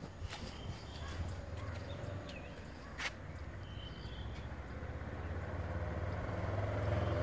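A small truck approaching along the road, its engine hum and tyre noise growing steadily louder through the second half. A few sharp clicks and short high chirps come in the first half.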